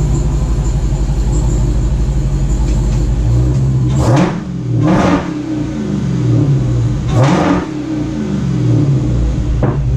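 Dodge Hellcat's supercharged V8 running steadily, then revving up and down twice under acceleration, with short sharp bursts at the peaks, before settling back to a steady drone.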